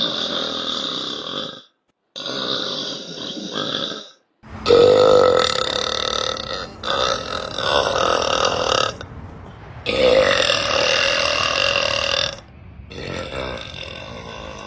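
A woman burping: a string of about six long, loud burps, each one to two and a half seconds, one after another with short gaps between.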